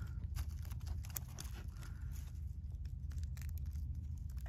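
Faint handling noise of a weathered metal cylinder being turned over in the hand: light scattered clicks and crackles over a low steady rumble.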